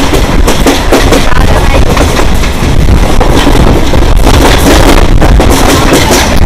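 Loud, rushing noise of a moving electric suburban train heard from its open doorway, with wind buffeting the microphone.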